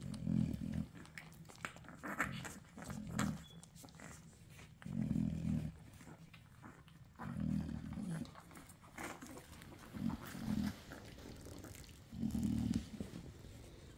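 A nursing American bully mother and her nano puppies: low grunts come every second or two, with small wet clicks of suckling between them.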